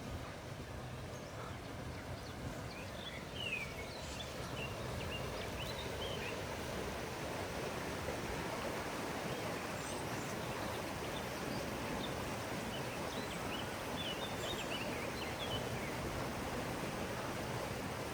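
Steady rush of flowing stream water, with small birds chirping in two short bouts, a few seconds in and again about two-thirds of the way through.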